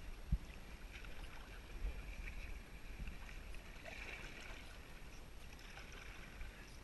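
Kayak paddle strokes, the blade dipping into the water on alternating sides, with water washing faintly around the hull in gentle swells about every two seconds. There is a short low knock about a third of a second in.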